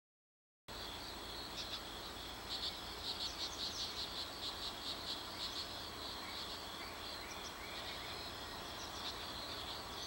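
Insect chorus: a steady high-pitched buzzing that starts suddenly under a second in, with a run of louder pulses at about four a second between roughly two and a half and five and a half seconds in.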